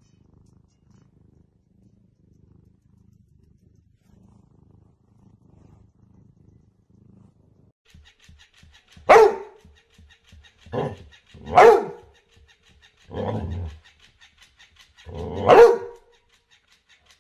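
A cat purring faintly. Then a boxer dog barks five times in loud, separate barks at an electric flopping fish toy, whose motor makes a fast, fine ticking under the barks.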